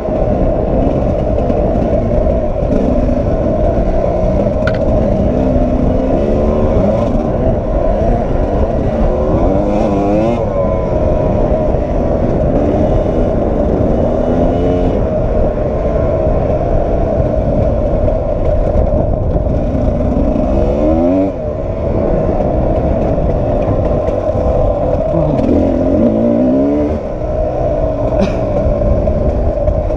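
Sherco 300 SE-R two-stroke enduro motorcycle engine running under load, heard close up from a camera mounted on the bike, its revs rising and falling with the throttle, with two brief throttle-offs in the second half.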